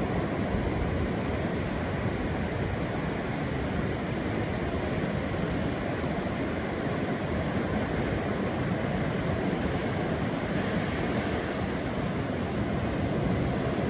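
Steady wash of sea surf and wind, an even rushing noise with no distinct events.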